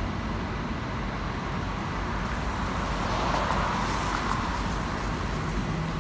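Tour bus engine and surrounding city traffic: a steady low rumble with a noisy hiss that swells about two to four seconds in.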